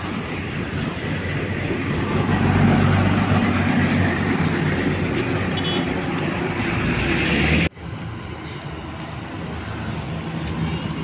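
Road traffic: motor vehicles passing on a busy road, with a louder pass a couple of seconds in where a low engine hum swells. The sound breaks off abruptly about two-thirds of the way through and picks up again.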